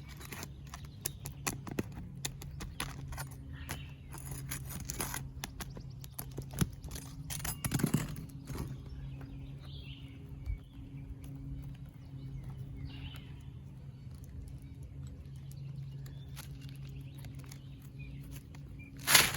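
Hand tools clicking and scraping against asphalt three-tab roof shingles as nails are pried out and the old shingle is worked loose, busiest in the first half and sparser after. A steady low hum runs underneath.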